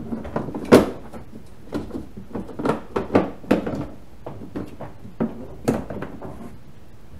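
Tools being dropped and set down inside a hard plastic swing-out truck-bed toolbox: a string of knocks and clatters, the loudest about a second in, with more around three seconds and near six.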